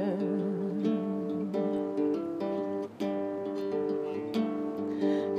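Two acoustic guitars playing an instrumental break in a folk song, a run of picked and strummed notes ringing steadily between sung verses.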